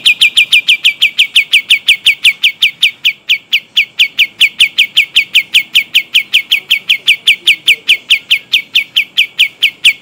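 A kapas tembak singing a long, unbroken roll: one clear, high note repeated about five times a second, each sliding down in pitch, at an even pace and volume.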